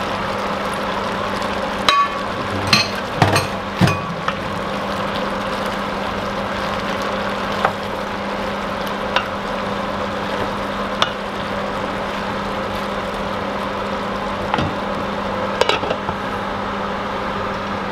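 Kitchen clatter at a stainless steel pot: a cluster of knocks about two to four seconds in as moringa drumsticks are tipped from a bowl into the pot, then single knocks of a wooden spoon stirring the vegetables, and a glass lid set on the pot near the end. A steady hum runs underneath.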